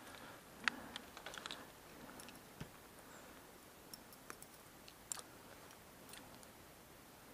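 Faint, scattered small clicks and ticks, about a dozen at irregular spacing, the sharpest about a second in, over a quiet background.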